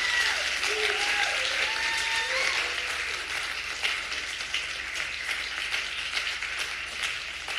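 Audience applauding, with a few shouted cheers in the first few seconds; the clapping eases a little toward the end.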